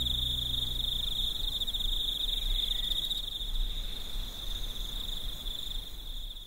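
Steady high-pitched insect chirring over a low rumble, slowly growing quieter.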